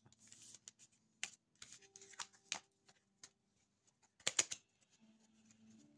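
Tarot cards being gathered up off a table by hand: faint, scattered taps and slides of card stock, with a cluster of sharper clicks about four seconds in.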